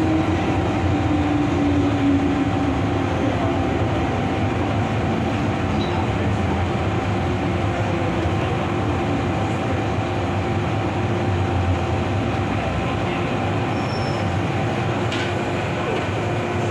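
MTR M-Train electric metro train running underground on the Island Line: a steady rumble of wheels on rail with a motor tone that falls slightly in pitch over the first three seconds.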